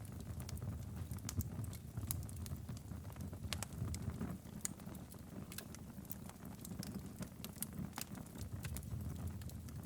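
Wood fire crackling in a fireplace: irregular sharp pops and snaps over a low steady rumble of the burning fire.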